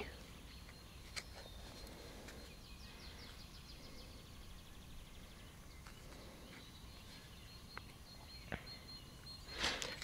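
Faint outdoor background with a short run of distant bird chirps, and a few small clicks as fingers pick maggots out of a plastic bait pot.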